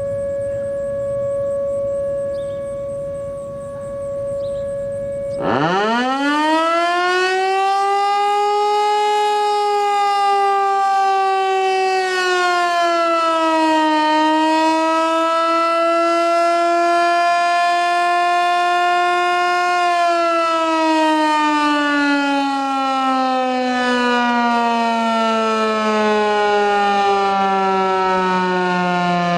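A steady distant siren tone holds for the first five seconds or so. Then an American Signal T-121 outdoor warning siren winds up fast, sags in pitch almost at once, wavers, and for the last third slides steadily lower. The siren is running sick, and the uploader is unsure whether the cause is a battery problem or some other fault.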